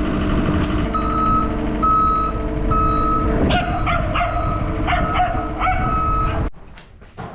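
A vehicle's reversing alarm beeping about once a second over a running diesel engine, with a dog barking several times from about halfway; the sound drops away abruptly near the end.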